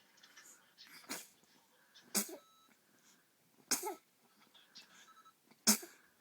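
Six-week-old baby sneezing four times, a second or two apart: short sudden sneezes, the first the softest and the last the loudest.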